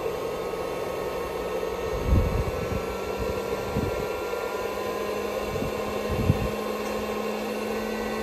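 Heat gun and power inverter fans running steadily while the inverter pulls close to 100 amps from a 12 V lithium battery. A faint whine slowly rises in pitch, and there are a few dull knocks.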